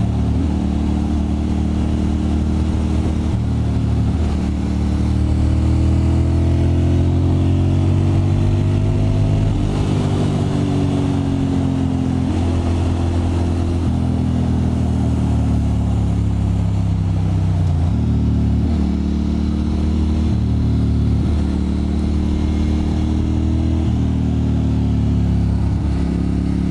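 Ducati Monster M600's air-cooled L-twin engine running on the road, its pitch climbing as it accelerates and falling as the throttle comes off or it changes gear. The pitch drops about ten seconds in and dips sharply, then climbs again, around eighteen seconds in.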